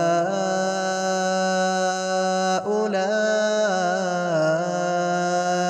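A man reciting the Quran in the melodic tajwid style of the Warsh reading, holding long drawn-out vowels with ornamental pitch turns. The voice breaks off briefly about two and a half seconds in, then carries on.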